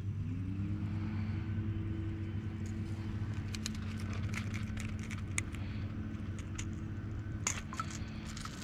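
A motor rises in pitch right at the start and then runs at a steady pitch over a low hum, with scattered light clicks in the middle and near the end.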